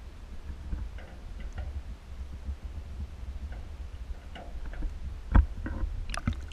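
Low, muffled underwater rumble picked up by a submerged camera, with scattered faint clicks and ticks and a sharper knock about five seconds in.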